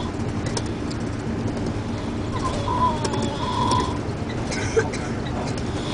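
A person snoring on a moving bus: one drawn-out, wavering, whistle-like snore about two and a half seconds in, over the bus's steady low engine rumble.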